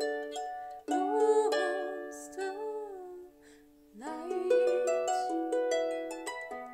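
Harp music: plucked notes, then a held chord with a wavering tone over it that fades to a short pause about halfway, after which the plucking resumes.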